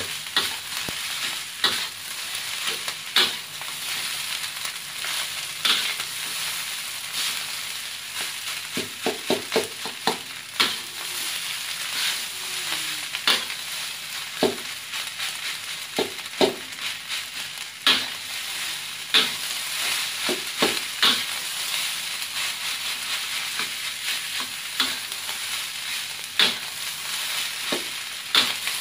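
Fried rice sizzling steadily in a hot wok while a metal spatula stirs and turns it, scraping and clacking against the wok at irregular intervals.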